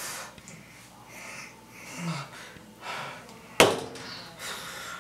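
A person's breathy puffs, sniffs and snort-like breaths through the nose and mouth, coming in short uneven bursts, with one sharp click or slap about three and a half seconds in, the loudest sound.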